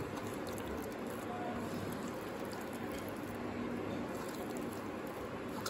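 Wet, steady squishing of paneer cubes being mixed by hand through a thick maida-and-cornflour batter in a steel bowl.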